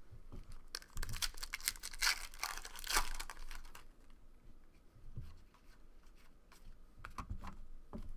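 A foil trading-card pack being torn open and its wrapper crinkled, in rustling bursts that are heaviest in the first few seconds and again near the end.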